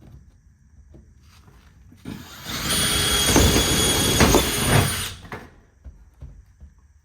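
A power cutting tool runs for about three seconds, starting about two seconds in with a steady high whine, enlarging a cut-out hole for an outlet box that was not yet big enough. Light knocks come before it.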